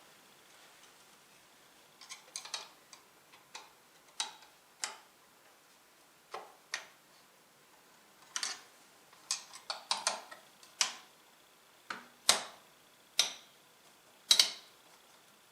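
Irregular sharp clicks and taps of hard plastic and metal computer parts being handled as a new AMD stock CPU cooler is fitted. They are sparse at first and grow louder and closer together in the last few seconds.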